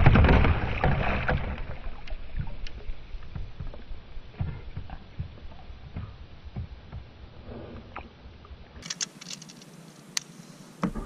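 Water sloshing against a plastic fishing kayak's hull, loudest at the start and fading over the first couple of seconds, with scattered light knocks and clicks of gear on the deck.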